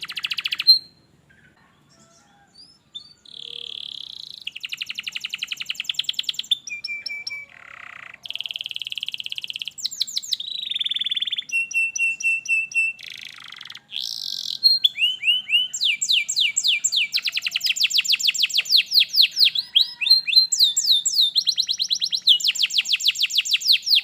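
Domestic canary singing in rolls and tours: phrases of fast repeated high notes that change every second or two, with a short held whistle and some quick glides among them. The song breaks off briefly about a second in, then runs on without stopping through the second half.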